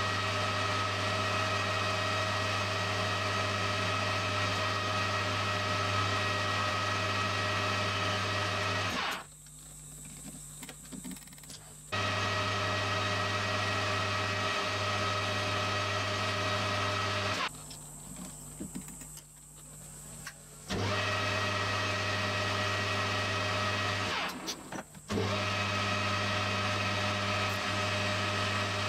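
Metal lathe running and turning a bar, a steady motor and gear hum. The hum drops away abruptly three times, for about three seconds twice and for about a second near the end.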